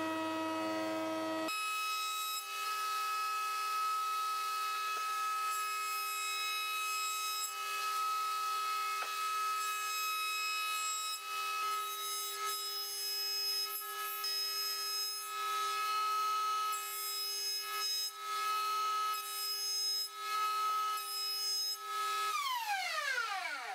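Table-mounted router running with a steady high whine while an MDF box is fed past the bit, the level dipping now and then as the cut loads it. A little before the end it is switched off and the whine falls steeply in pitch as it spins down.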